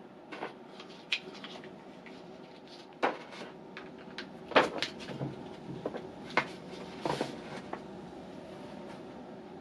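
Plastic syringe being handled on a tabletop: scattered clicks and knocks as it is picked up, its plunger drawn back and pinned with a nail, the loudest knock about halfway through. A steady low hum runs underneath.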